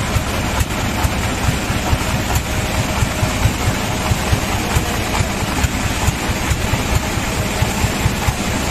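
Sawmill engine running steadily at idle, with a fast, even low throb.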